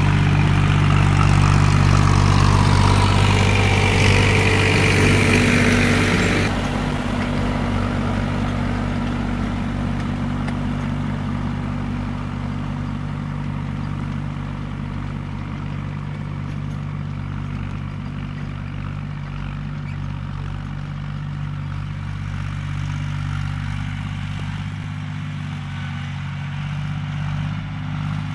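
Farm tractor's diesel engine running steadily under load while pulling a disc plow through a stubble field. It is loud and close for the first few seconds, then drops off suddenly and fades slowly as the tractor moves away.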